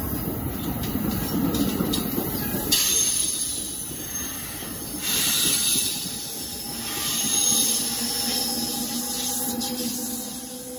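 NJ Transit multilevel passenger cars rolling past, their wheels rumbling on the rails, with short high hissing squeals about three and five seconds in. Near the end a steady electric hum comes in as the ALP-46A electric locomotive pushing the train goes by.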